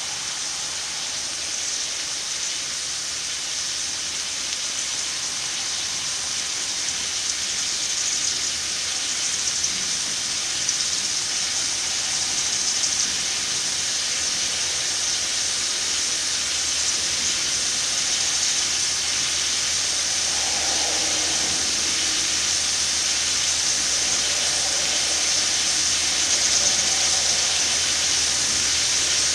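Steady hiss of water spraying from garden watering and falling like rain.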